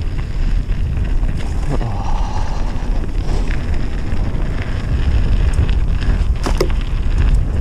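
Wind rumbling hard on the camera's microphone during a fast downhill mountain-bike descent, with the tyres running over the dirt trail and the bike rattling underneath. A couple of sharp clacks come about six and a half seconds in.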